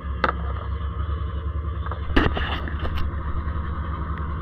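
A boat engine running steadily with an even, throbbing low hum, and a few sharp knocks: one just after the start and two more around two and three seconds in.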